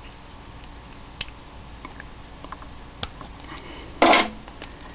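Light handling noises over a low steady hum: a few faint clicks, then a short, louder scrape about four seconds in. The spindle is not running.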